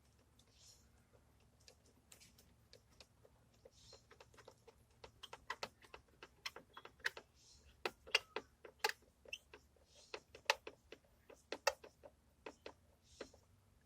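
Irregular sharp clicks and taps of hand tools and parts being worked on an engine, coming thicker and louder from about four seconds in, with a few short soft rustles.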